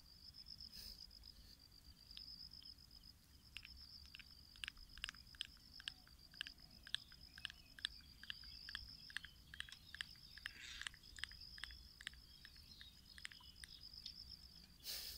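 Faint, sharp little clicks, a few a second, as an inflated puffer fish is pinched and squeezed between the fingers. A steady high chirring of insects runs underneath, and a brief louder rustle comes at the very end.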